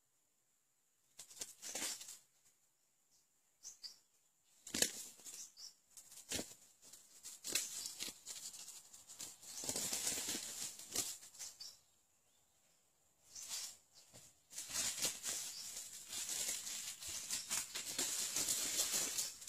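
Irregular bursts of rustling and crackling in dry leaf litter as red junglefowl move about on the forest floor, with quiet gaps between, around 1–2 s, 12–13 s and just before 14 s.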